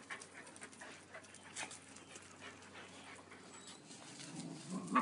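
Several dogs moving about and playing close by: faint breathing and scuffling with scattered light clicks, and a slightly louder short sound just before the end.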